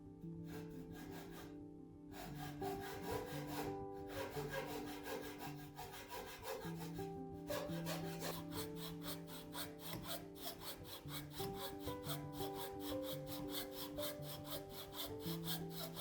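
Rhythmic rubbing strokes of a hand tool working wood, about four strokes a second, growing steadier and more even about halfway through, over soft background music.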